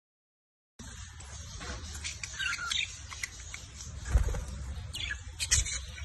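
Caged finches chirping in short, scattered calls, starting abruptly after a moment of silence, with two low thumps about two-thirds of the way through and near the end.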